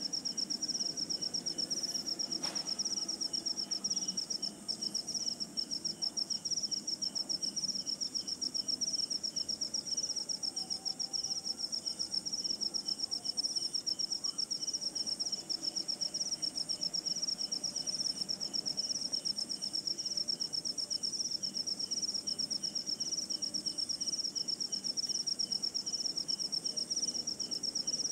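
Cricket chirping: a high, fast, even run of pulses that never pauses, over low background noise.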